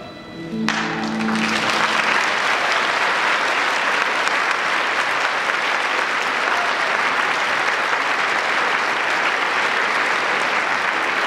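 The music's closing chord is held for about the first second and a half, then an audience applauds steadily.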